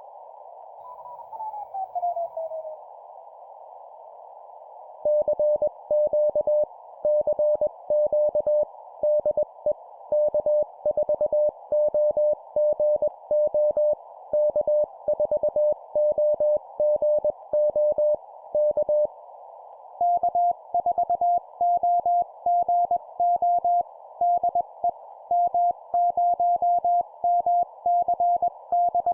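Morse code (CW) keyed at 20 words per minute, heard as a single beeping tone over the hiss of a receiver's narrow filter. Near the start a tone glides down in pitch, as when tuning across a signal; then one station sends a CQ call, and from about two-thirds of the way through a second station answers at a slightly higher pitch.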